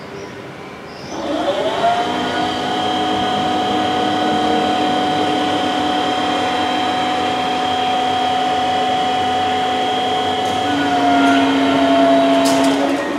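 Electric motors of a level crossing's barrier drive whining as the booms are raised. The whine spins up about a second in, holds steady, then winds down and stops just before the end, with a few light clicks near the end.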